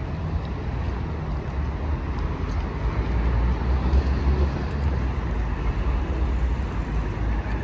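Steady city street traffic noise with a deep rumble, swelling slightly around the middle.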